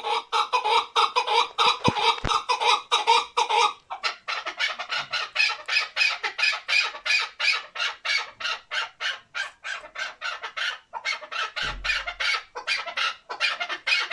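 Male chukar partridge, a hunting decoy bird, calling: a fast, unbroken run of clucking notes, about four or five a second, with a short break about four seconds in and another near eleven seconds.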